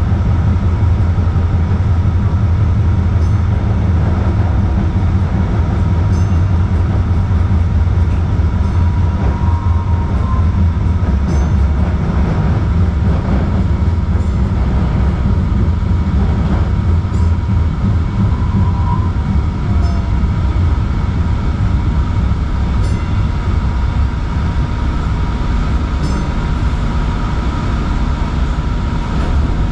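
2010 Kinki Sharyo electric light-rail car running along the track, heard from on board: a steady low rumble of wheels and running gear with a thin steady hum and faint light ticks every few seconds.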